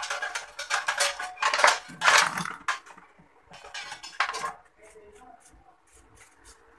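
Handling noise of electrical wire being pulled through a sheet-metal breaker enclosure, clattering and scraping against the metal for the first few seconds. After that come a few lighter clicks as a plastic conduit connector is handled.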